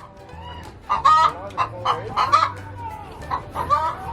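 A flock of chickens calling, with short loud calls about every second or so.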